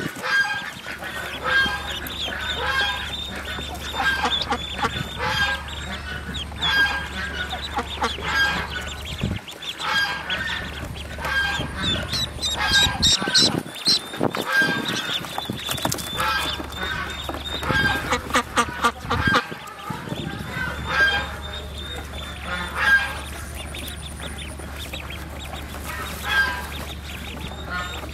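Domestic ducks calling over and over in short, honking calls.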